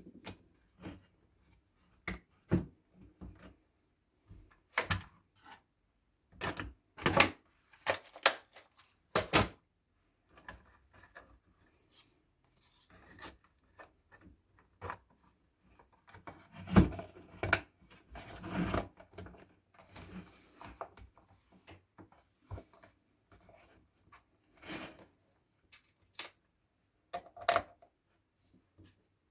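Parts of a Silvercrest electric kettle being handled and fitted together: irregular clicks and knocks with rubbing and scraping between them.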